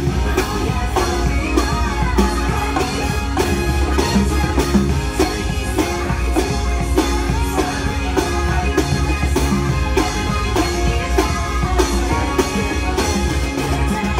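Celebration show music: singing over a steady drum beat.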